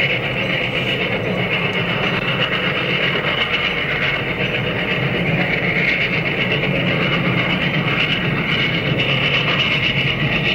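Union Pacific Big Boy 4014's steel driving wheels and side rods rolling slowly on the rails, a steady rolling grind with a high hissing edge. The locomotive is moving dead behind a diesel, not under steam, so there are no exhaust beats.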